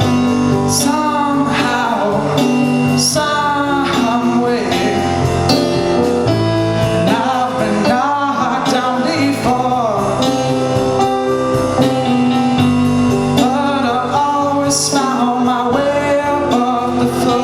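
A band playing a slow song live, with electric guitar, keyboard, bass and drums, and occasional cymbal crashes.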